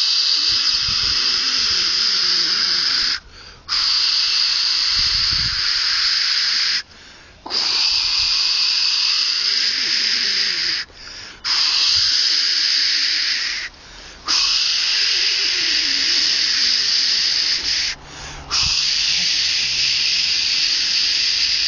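A loud, steady hiss, broken by five short, sudden gaps of about half a second each.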